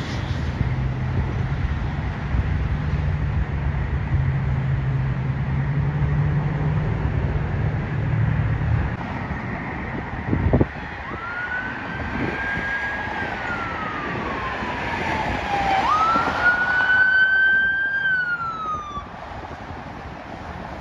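A vehicle engine drones steadily for the first nine seconds. After a sharp click, an emergency vehicle's electronic siren wails: it rises, holds high, slides slowly down, then rises again and falls, louder the second time.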